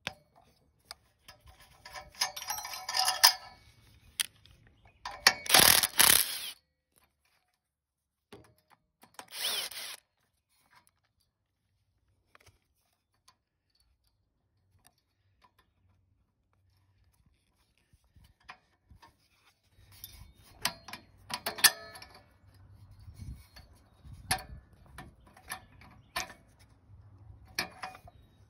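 Hand tools working on the fuel injector of a 196cc single-cylinder diesel engine: ratcheting and metal clicking and clinking as the injector clamp nuts are loosened and the injector is worked free. The sound comes in short bursts, goes nearly quiet for several seconds midway, then returns as a longer run of clicks and clinks.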